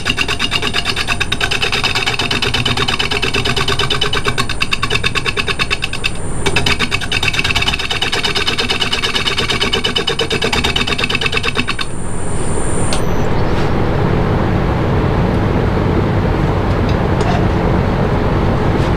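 Workshop power tool running. For about twelve seconds it gives a fast, even rattle with a high whine, cutting out briefly about six seconds in. It then changes to a steadier, deeper rumble without the whine.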